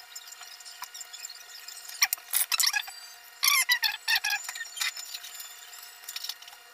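Fresh leafy greens, alugbati (Malabar spinach) among them, being picked by hand. Stems snap and leaves crackle as they are stripped off, in irregular clusters of short, crisp snaps, most of them in the middle.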